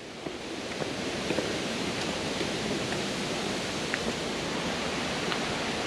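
Steady rush of water from a creek cascading over rocks, an even hiss that swells slightly in the first second.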